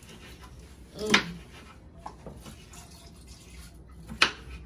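A knife cutting an onion on a kitchen counter: a few knocks and clicks over quiet room tone, with one louder knock about a second in and a sharp click near the end.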